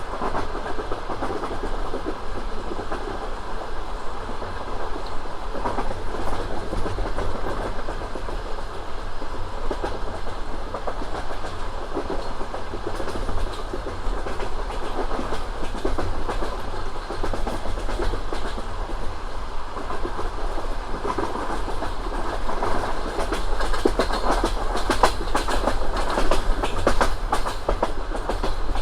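Passenger train running at speed, its wheels clattering over rail joints over a steady rumble. The clatter comes thicker near the end.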